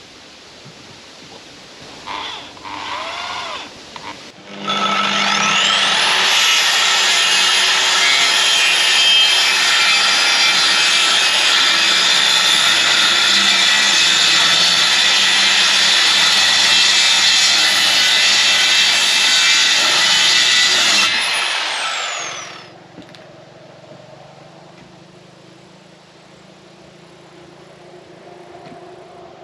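Power tool running for about seventeen seconds, spinning up in pitch as it starts and winding down as it stops. A shorter burst comes a couple of seconds before it.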